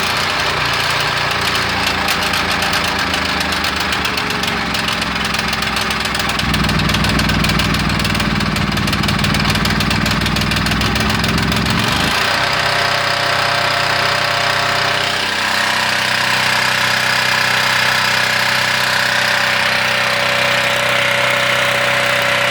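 Miller Bobcat welder-generator's gasoline engine running steadily and refusing to shut off. Its note grows heavier and louder about six seconds in and drops back about twelve seconds in.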